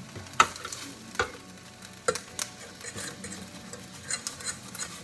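Beaten eggs cooking in a frying pan as they are stirred with a utensil, with a light sizzle and a few sharp clicks of the utensil against the pan in the first half.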